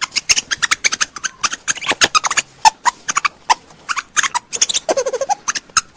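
An animal calling in a rapid run of short, sharp clicks and chirps, several a second, with a brief gliding squeak about five seconds in.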